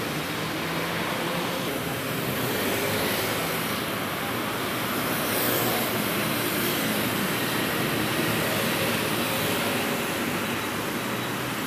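Steady city road traffic of cars and scooters driving past on a wide multi-lane avenue: a continuous rumble of engines and tyres. One vehicle passes close with a louder swish about halfway through.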